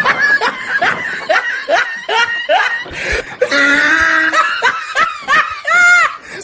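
Several men laughing heartily in repeated bursts.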